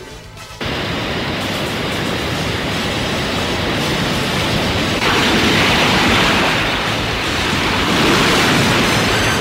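Rushing noise of surging seawater flooding through a city, a sound effect for a tsunami wave. It starts abruptly about half a second in and grows louder around halfway.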